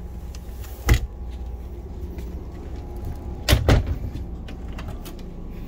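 Wooden bunk and door panels of a motorhome interior being handled: a single sharp knock about a second in, then a louder clatter of a couple of knocks about three and a half seconds in as a door is pushed open, over a steady low hum.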